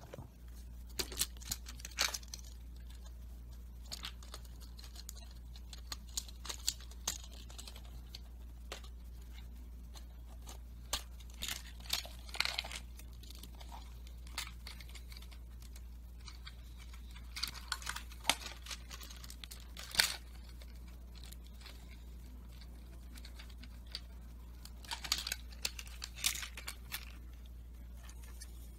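Scattered clicks and rustles of LEGO plastic parts being handled and pressed together, mixed with fabric rustling, in short clusters with the sharpest click about two-thirds of the way through, over a steady low hum.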